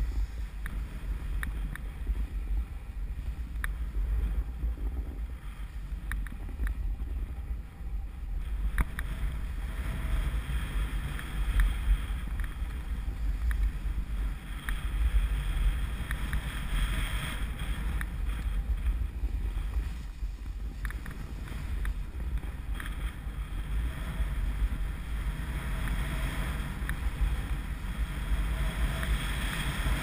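Wind buffeting an action camera's microphone as it moves downhill on a skier, with a steady low rumble, and the hiss and scrape of skis running over packed snow that grows brighter in stretches.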